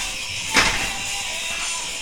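Background music playing steadily, with one short sharp knock about half a second in.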